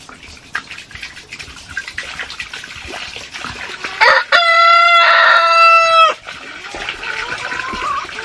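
A rooster crows once, about four seconds in: one long, steady, high call of about two seconds, the loudest sound. Around it hens cluck and water pours from a plastic jug into a rubber pan.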